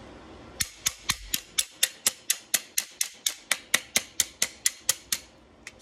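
Ratcheting wrench clicking in an even run of about four to five sharp clicks a second as the bolt on a mini bike's coil-over shock absorber is turned; the clicking stops just before the end.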